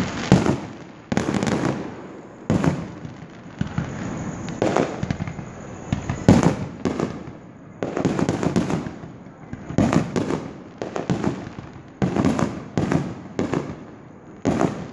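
Aerial firework shells bursting in quick succession: about fifteen sharp bangs at irregular gaps of one to two seconds, each fading out before the next.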